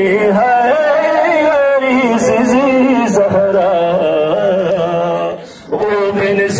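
Male voices chanting a noha, a Muharram lament, in a wavering, drawn-out melody, with a short break between lines about five and a half seconds in.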